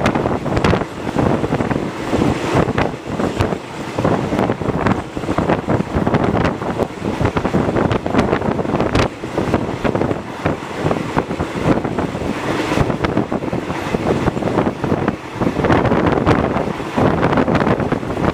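Wind buffeting the microphone at the open window of a moving train, over the steady running noise of the train with many short rattles and clicks.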